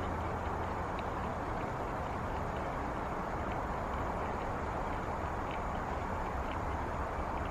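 Steady outdoor background noise, a low even hiss and rumble, with a few faint ticks.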